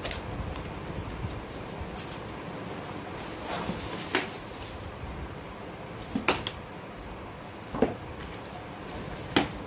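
Cardboard packaging and plastic wrap being handled as a gorilla tripod is unboxed: rustling, and about four sharp knocks and clicks spread out as the box is opened, the wrapped tripod slid out and bagged parts set down on a table.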